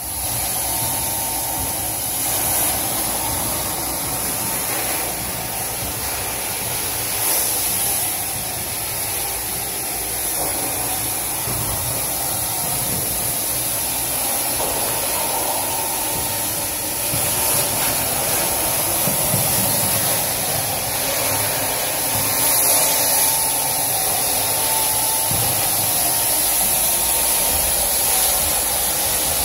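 Rotovac Bonzer carpet-extraction tool running on truckmount vacuum as it is worked over carpet tile: a steady rushing of suction and spray hiss, with a faint thin whine in it.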